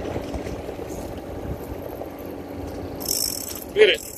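Big-game lever-drag fishing reel being cranked, giving a steady ratcheting, gear-driven whir. Near the end a brief burst of hiss comes, then a short, loud pitched sound.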